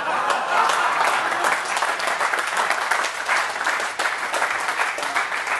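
Audience applauding, dense clapping that begins to thin out near the end.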